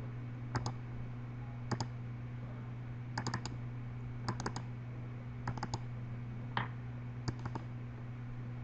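Short, sharp clicks from working a computer, coming in small groups of two to four, about seven groups over several seconds, over a steady low hum.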